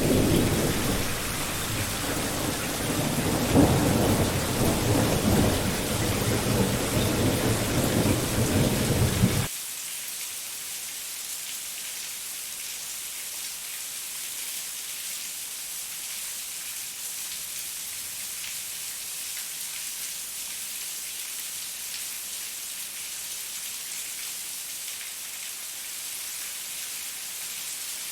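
Steady rain with a long, deep rumble of thunder over it, which cuts off abruptly about nine seconds in, leaving only the hiss of the rain.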